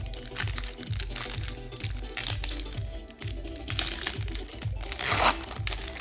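Foil trading-card booster pack crinkling as it is handled and opened, with the loudest crackle about five seconds in. Background music with a steady beat plays underneath.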